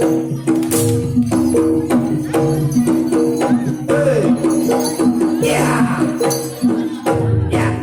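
Live jaranan accompaniment music: a fast, steady pattern of short pitched percussion notes over drum strokes and jingling percussion.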